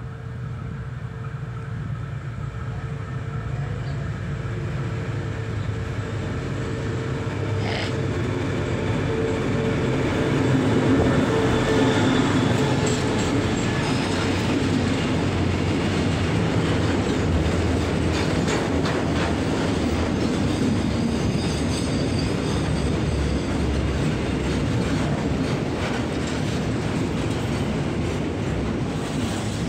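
Diesel-hauled container freight train passing close by. The locomotive's engine hum grows louder as it approaches and goes past, and then a long line of loaded container flat wagons rolls by with steady clatter of wheels on the rails.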